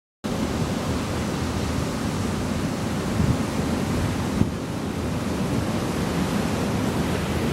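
Ocean surf breaking and washing onto a beach, a steady rush, with wind on the microphone and a brief low thump about four and a half seconds in.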